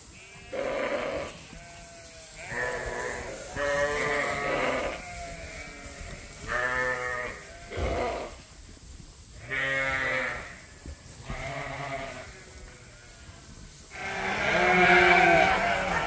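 Sheep bleating one after another, about nine quavering calls of around a second each with short gaps between. Near the end the bleats grow louder and overlap.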